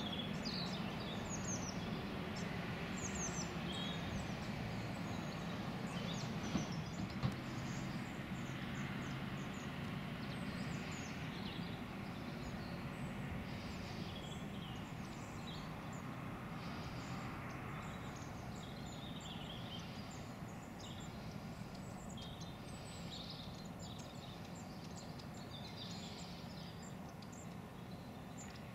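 Diesel train running away along the line, its low rumble fading steadily as it goes. Small birds chirp throughout.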